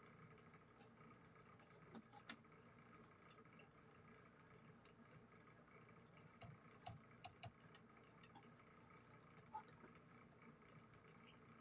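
Near silence: faint room hum with scattered soft, irregular clicks of plastic forks against plastic plates.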